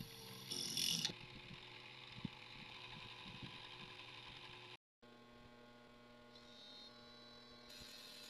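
Small 24-volt geared motor of a homemade mini drill press running with a faint, steady hum. About half a second in, the twist drill bites into a metal tube with a short, louder, higher grinding that lasts about half a second.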